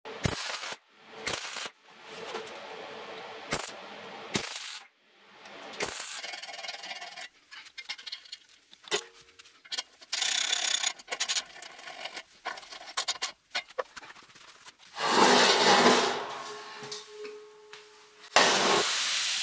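Steel fabrication work: knocks and clanks of steel parts being handled and fitted, with stretches of scraping and rasping tool work. The loudest part is a noisy burst about three-quarters of the way through.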